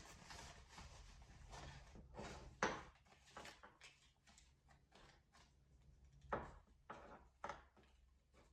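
Faint handling sounds of packing orders: scattered rustles and light taps, with a sharp click about two and a half seconds in and three more between six and seven and a half seconds.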